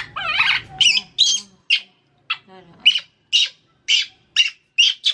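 Baby monkey giving shrill, high-pitched distress cries while being bathed: one long wavering squeal, then a string of short cries about two a second. The cries show fear of the water.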